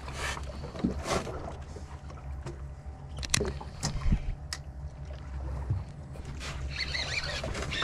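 A fishing boat's engine idles with a low steady hum. Scattered sharp knocks and clatter come over it, several in a cluster about three to four and a half seconds in.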